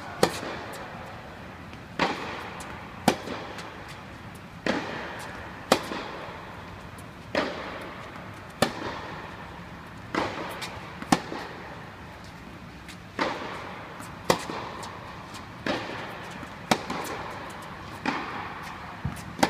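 Tennis ball struck back and forth by rackets in a baseline rally, with sharp racket hits and ball bounces about every second or so, the near player's strokes loudest. Each impact rings with the echo of a large indoor tennis hall.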